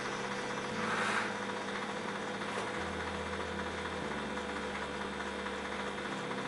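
A heated serrated knife sawing and melting its way into a kayak's plastic deck, with a brief soft hiss about a second in. A steady low hum runs underneath.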